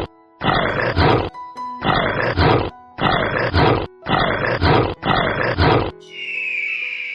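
An animal's loud, rough calls repeated in quick pairs about once a second over background music. About six seconds in, a quieter, high, drawn-out call takes over.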